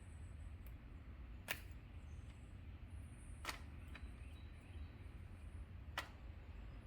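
Three faint sharp clicks, about two seconds apart, over a low steady hum.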